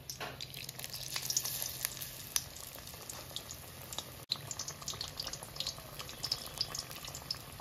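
Besan-battered jackfruit cutlets deep-frying in hot refined oil in a kadai, a steady sizzle full of small crackles and pops.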